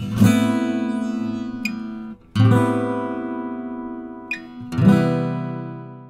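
Acoustic guitar music: three strummed chords, each left to ring and die away, the last fading out at the end.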